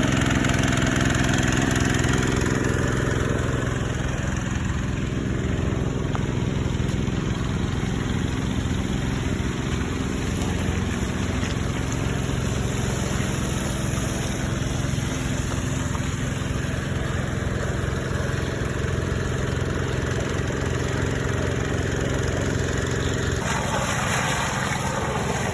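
Small Robin petrol engine running steadily at a constant speed; the sound shifts abruptly near the end.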